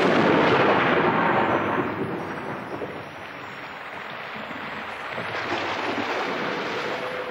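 Thunder rolling and fading away over the first couple of seconds, then steady rain that grows heavier from about five seconds in, falling onto rock and shallow pools.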